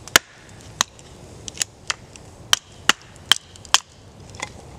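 Batoning wood: a baton striking the spine of the TK2 knife to drive it down through a short upright stick on a chopping stump, splitting it into quarters. About nine sharp knocks at an uneven pace, the first the loudest.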